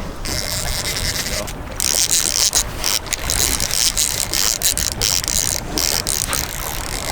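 Heavy fishing reels being cranked, their gears ratcheting, as two anglers reel in a snagged paddlefish, under a steady rushing noise.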